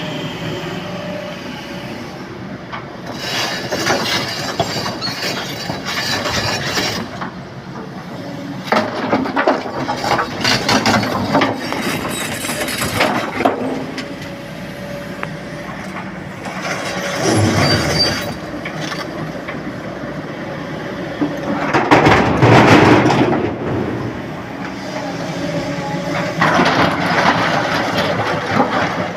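An excavator loading broken stone into a dump truck: heavy machinery running, with several loud spells of rock clattering and rattling into the steel truck body.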